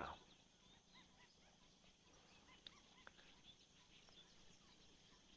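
Near silence with faint, distant bird calls: scattered short high chirps from a flock of birds, and a couple of faint clicks.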